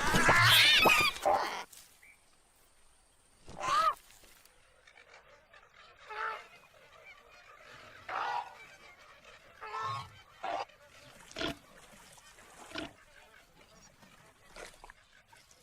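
Cartoon animal calls: a loud burst of pitched calls in the first second and a half, then short single calls every second or two.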